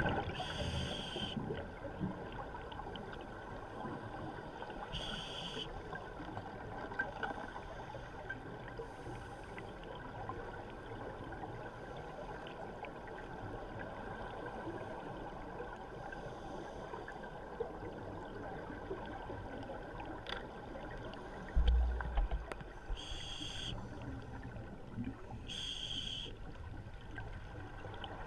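Underwater ambience heard through a camera housing: a steady hiss with short bursts of scuba regulator exhalation bubbles every few seconds. One low thump comes a little past the middle.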